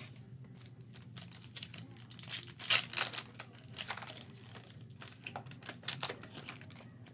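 Trading card pack wrapper crinkling and tearing as a pack is opened, in irregular rustles that are loudest a little under halfway through.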